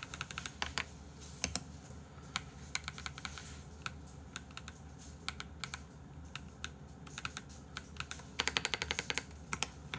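Computer keyboard typing: scattered keystrokes, with a quick run of them about eight seconds in.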